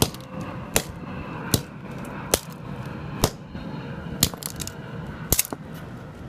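A 4-pound sledgehammer striking a broken phone or keyboard again and again, a sharp crack about once a second, with a few blows landing in quick pairs.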